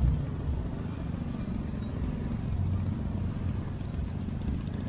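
Motor scooter and car engines idling and creeping in a dense traffic jam, a steady low rumble.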